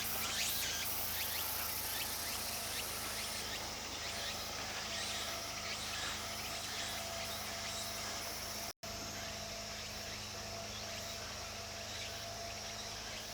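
Outdoor ambience: a steady high hiss of insects over a low hum, with faint light ticking in the first few seconds. The sound drops out for an instant about nine seconds in.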